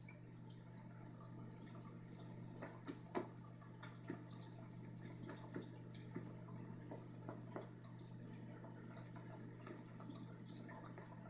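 Faint soft knocks and rustles from a Savannah cat biting and kicking a fabric catnip kicker toy on a carpet. The clearest knock comes about three seconds in. A steady low hum and faint hiss run underneath.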